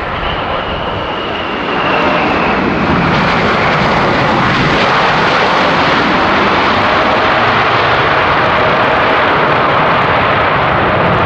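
Boeing 787-8 jet airliner's engines at high thrust on takeoff: a loud, steady jet rumble that grows louder about two seconds in. A high whine sinks slightly in pitch early on.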